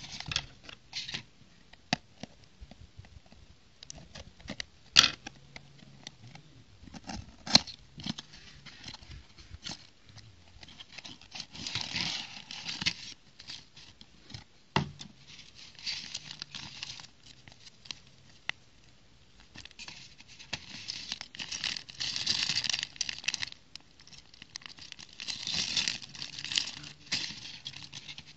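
A cardboard box is handled and bags of plastic bricks are tipped out onto a plate, with sharp knocks about five and seven and a half seconds in. Through the second half, sealed plastic bags of bricks crinkle and rustle in repeated bursts as they are handled.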